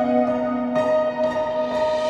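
Background music: soft held notes in slow chords, with no beat, changing chord about three-quarters of a second in.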